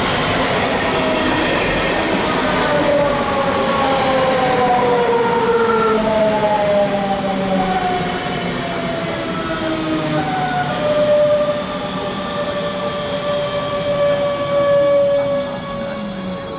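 DB Class 425 electric multiple unit passing close by, its electric drive whining in several tones that slowly fall in pitch, fading near the end as the train moves off.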